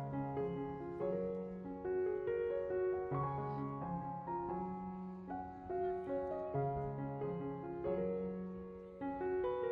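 Background piano music: a gentle, slow piano melody over sustained low bass notes.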